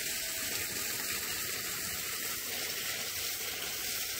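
Steady rush of water being sprayed while plants are watered.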